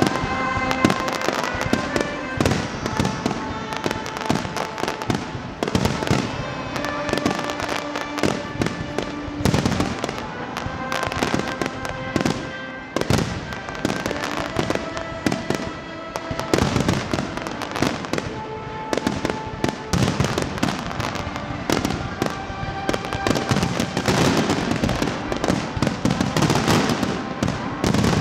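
Aerial firework shells bursting one after another in quick succession during a pyrotechnic display, with music playing along underneath.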